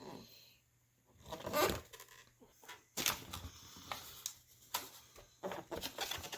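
Packaging rustling and crinkling as a boxed car side mirror is unwrapped and handled, with irregular scrapes and a sharp knock about three seconds in.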